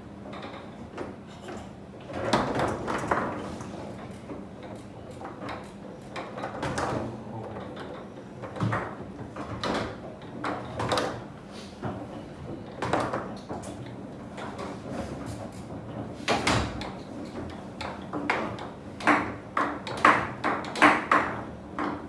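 Foosball table in play: irregular sharp knocks and clacks as the rod figures strike the ball and it hits the table, with sliding and rattling of the rods. A quick run of clacks comes near the end.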